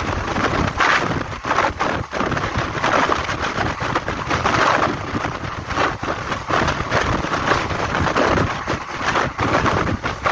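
Moving passenger express train heard from on board, its running noise mixed with wind buffeting the microphone in uneven gusts.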